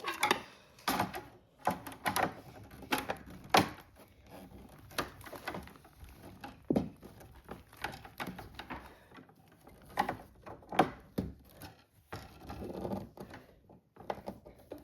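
Toy barn pieces being handled and fitted together: irregular clicks and knocks, a few a second, as parts are pushed into place.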